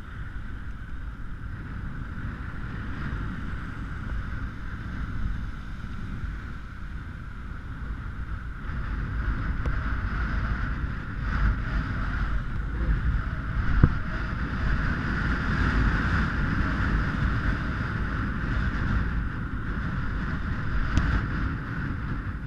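Wind buffeting the microphone of a GoPro on a mountain bike riding on a paved road, with a steady low rumble from the tyres and a constant higher hum. One sharp knock about fourteen seconds in.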